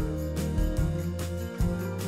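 Background music with a steady beat over a held bass line.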